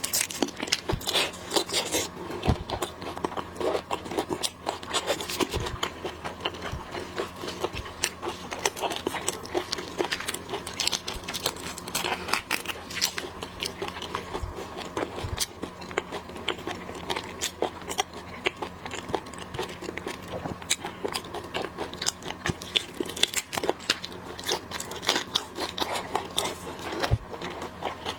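Close-miked eating of shrimp and oysters: dense, irregular crunching, crackling and wet chewing, over a faint steady hum.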